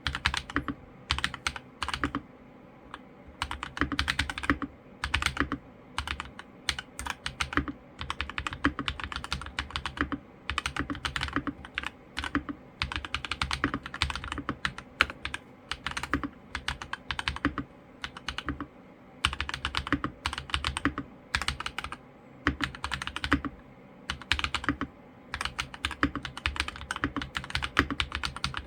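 Mechanical keyboard fitted with lubed Akko Rose Red linear switches being typed on in quick runs of keystrokes with short pauses between them. The lubed switches give the sound he was after, with no spring noise.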